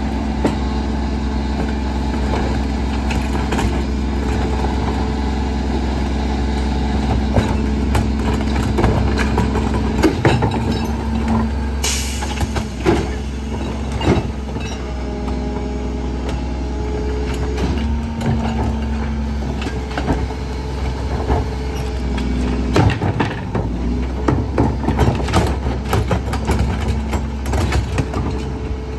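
Rear-loader garbage truck's diesel engine idling with a steady hum, while plastic wheeled trash carts are tipped by hand into the hopper, knocking and banging against its rim in clusters. A brief hiss comes about twelve seconds in.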